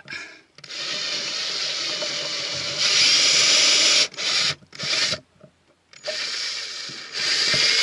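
Ryobi cordless drill drilling holes, run in bursts: one run of about three and a half seconds that gets louder partway through, two short blips, then a second run that also grows louder near the end.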